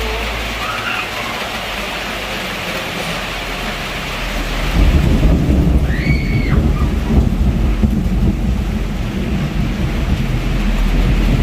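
Heavy rain falling steadily, with a deep rumble of thunder rolling in about five seconds in and carrying on through the rest.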